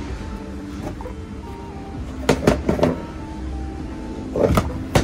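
Background music, with a few sharp clicks and knocks from parts being handled in a car's engine bay: a cluster about two seconds in and another near the end.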